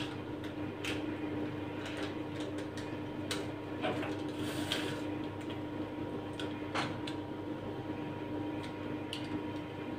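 Scattered soft taps and rustles of hands shaping and pressing puff-pastry börek on a wooden cutting board, over a steady low hum.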